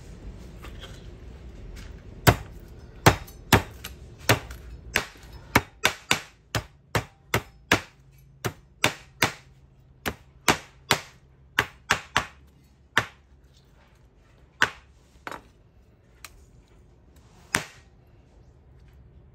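Santoku knife chopping raw chicken skin and bones on a wooden cutting board: sharp, irregular knocks of the blade hitting the board, about one or two a second. They start about two seconds in and thin out near the end.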